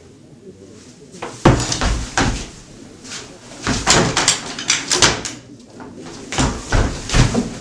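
Heavy knocks and bangs in several bunches, the loudest about one and a half seconds in.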